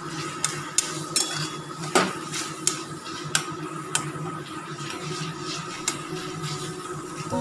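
Spatula knocking and scraping against a metal kadai (wok) as chunks of cooked tomato are stirred, an irregular run of clicks with the loudest about two seconds in. A steady hum runs underneath.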